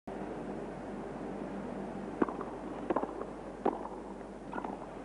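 Tennis ball struck by rackets and bouncing in a doubles rally: a serve hit about two seconds in, then several quick sharp pops from strokes and bounces about every 0.7 s, over a steady background hush of the arena.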